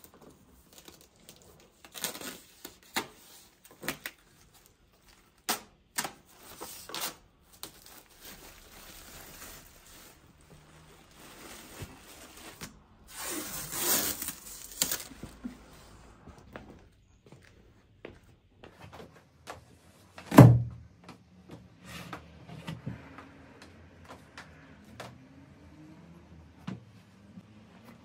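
A rolled fringed area rug being handled and laid out: scattered light knocks and rustles, a longer rustling, tearing-like noise about 13 to 15 seconds in, and one heavy thud about 20 seconds in.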